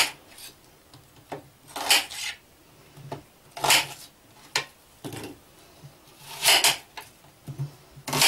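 Kitchen knife cutting through peeled onions and knocking on a plastic cutting board, about six slow cuts a second or two apart.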